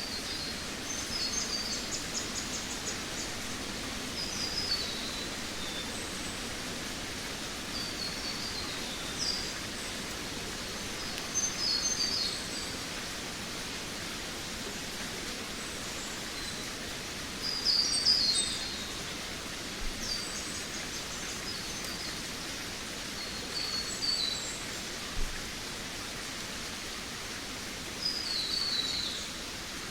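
Forest birds singing: short, high chirping phrases that fall in pitch, every few seconds, over a steady background hiss. The loudest phrase comes a little past the middle.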